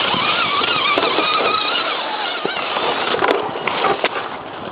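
Electric motor and gear drive of a 1/10-scale Axial SCX10 RC crawler whining, its pitch wavering with the throttle, over a steady wash of creek water and a few sharp clicks.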